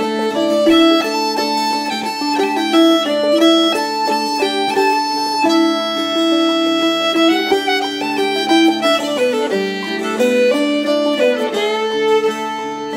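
Background music: a fiddle playing a melody over held lower notes.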